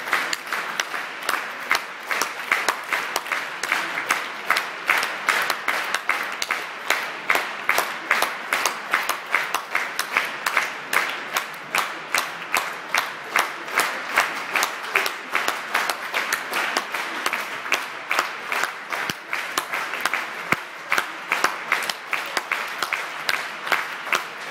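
Concert-hall audience applauding, the clapping falling into a steady beat of about two claps a second.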